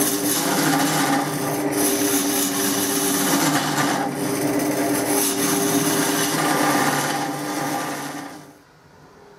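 A hand-held turning tool cutting into a wooden blank spinning on a wood lathe: a loud, steady scraping hiss of shavings being peeled off over the lathe's hum, with brief lifts of the tool. It stops abruptly about eight and a half seconds in.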